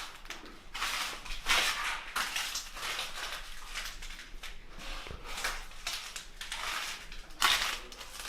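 Footsteps crunching over debris on the floor, about one step a second, the loudest near the end.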